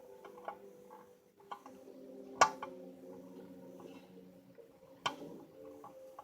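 Light clicks and taps of small metal parts and a screwdriver while a screw is started in the body of a Marx #6000 toy diesel locomotive, with one sharp click about two and a half seconds in and another about five seconds in.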